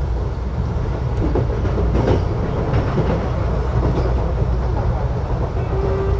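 Electric commuter train heard from inside the passenger car while running at speed: a steady low rumble of wheels on rails, with a few faint clicks from the track.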